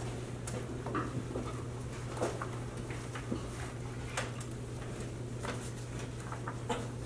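Meeting-room noise while people walk up to cast ballots: scattered light taps and knocks from footsteps and handling, roughly one a second, over a steady low hum.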